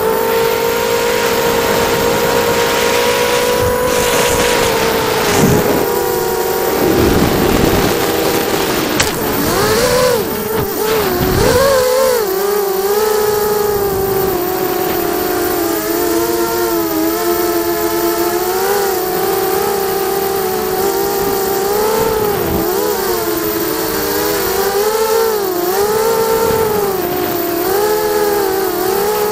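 ZMR 250 racing quadcopter's brushless motors and propellers whining in flight, heard from on board. The pitch holds fairly steady at first, with a rush of wind noise around four to eight seconds in. After that it rises and falls constantly as the throttle is worked through the trees.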